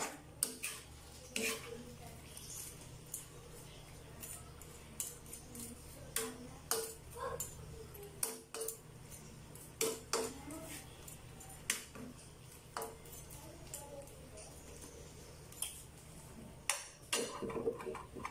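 Metal spatula scraping and knocking against a steel wok as shrimp in sauce are stirred, with irregular clinks roughly once a second. Near the end a glass lid is set on the wok.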